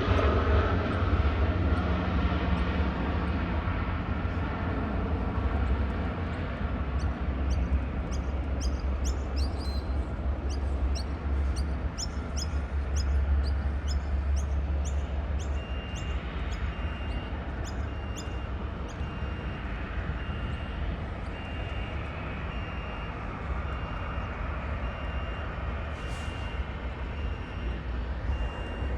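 Low rumble of a passing jet airliner slowly fading away. From about halfway in, a high beep repeats about once a second.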